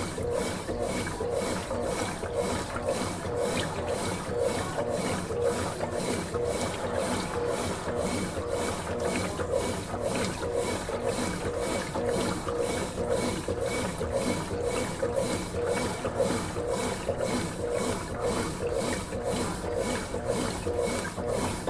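Consul Facilite 11 kg top-loading washing machine washing a load of clothes: a steady rhythmic churning, with water and laundry swishing about twice a second.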